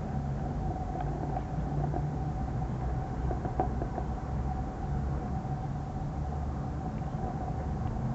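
A steady low mechanical hum with a constant whine above it, and a few faint ticks near the middle.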